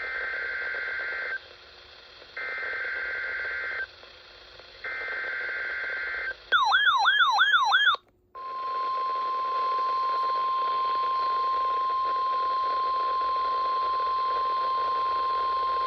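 NOAA Weather Radio alert tones for a Required Weekly Test. The three short, raspy digital data bursts of the SAME header come first, then about a second and a half of fast warbling up-and-down sweeps. After a short gap the single steady high-pitched 1050 Hz warning alarm tone begins and holds.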